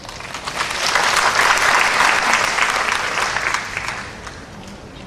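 Audience applauding in a hall, swelling within the first second and dying away after about four seconds.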